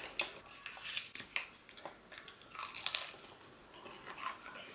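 Close-up crunching and chewing of crispy breaded KFC fried chicken, in a run of crisp crackles, the loudest about a quarter second in and again near the middle and about three seconds in.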